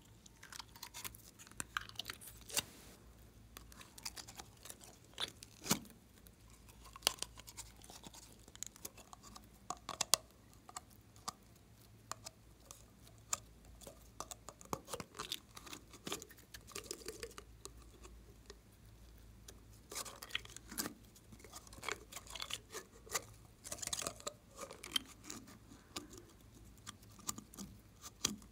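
Clear green slime squeezed and pulled out of a soft plastic bottle: irregular sticky crackles, clicks and squelches from the slime and the squeezed bottle.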